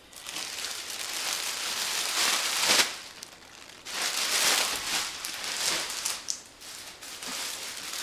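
Crinkly wrapping being handled and rustled in several spells, with a short pause about three seconds in.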